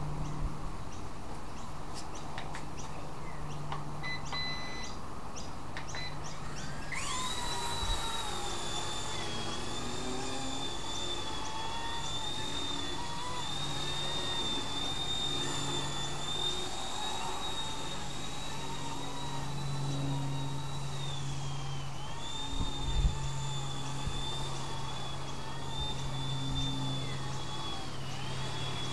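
Eachine E120 micro RC helicopter: a few short electronic beeps, then its electric motor and rotors spool up about seven seconds in to a steady high whine. The whine dips in pitch briefly now and then as it flies. A couple of low thumps of breeze on the microphone come later on.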